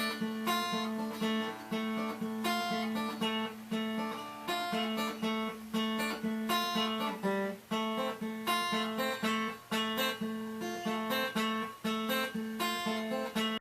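Instrumental outro of a song: acoustic guitar playing a repeating plucked pattern over a steady low note, cutting off abruptly at the end.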